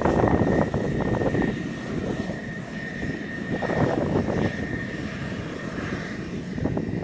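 F-16 Fighting Falcon's jet engine running at taxi idle: a steady high whine over a rumbling roar that is strongest early on and eases slightly in the middle.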